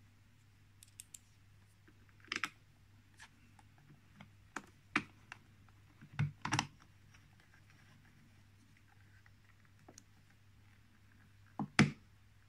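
Irregular small metallic clicks and taps of a socket-head cap screw being fitted into a lathe's motor-mount bracket and worked by hand, the loudest a double click near the end, over a faint steady low hum.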